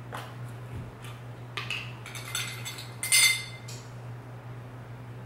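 Metal measuring spoons on a ring clinking together while a baking powder canister is handled, for a few light clicks and clinks. The loudest is a short metallic ring about three seconds in.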